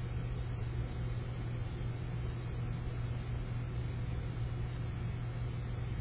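A steady low hum over constant background noise, unchanging throughout, with no bird calls standing out.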